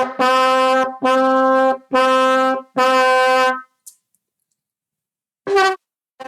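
Bugle playing a row of separate tongued notes on one pitch, about one a second, each started with the tongue as in 'ta ta ta'. After a pause, a short higher note and a brief broken attempt at another come near the end.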